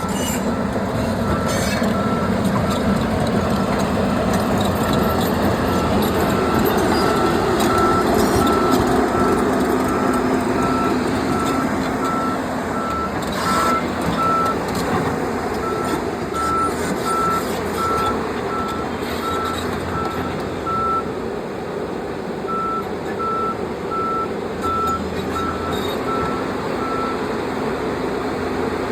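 A Sany SY335c excavator's Cummins diesel engine running, with its travel alarm beeping steadily at one pitch, the sign that the machine is tracking. The beeping breaks off twice for a second or so, and a few short knocks are heard.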